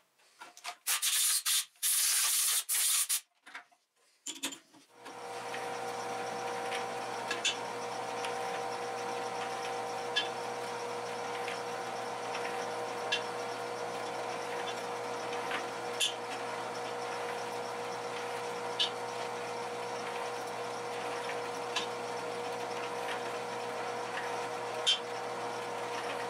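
Drill press drilling small steel parts in short, harsh bursts broken by gaps. It then runs steadily with a hum while a countersink rubs the burrs off the drilled holes, with a light click about every three seconds.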